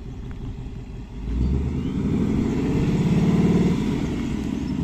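Ford Mustang GT's 5.0-litre V8 engine and exhaust revved from idle about a second in. The revs are held up for about two seconds, then drop back toward idle near the end.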